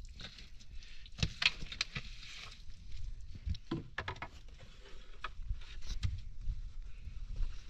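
A long-handled digging tool chopping and scraping into dry earth: irregular thuds and scrapes, with sharper strikes about a second and a half in and again near four seconds.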